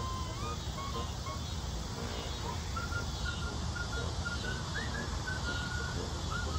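Birds chirping with short, repeated high calls and one quick upward call, over a steady low outdoor rumble.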